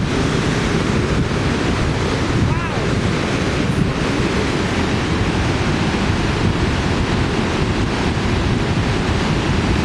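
Steady roar of a waterfall, with wind buffeting the microphone.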